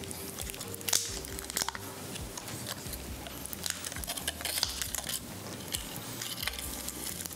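Light clicks and taps from handling small pieces and tart shells on a stone countertop while chocolate is piped, over a low steady room hum.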